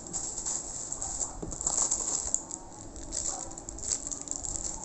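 Irregular rustling, crinkling and light clattering of packaging and small parts being handled, with a few sharp clicks.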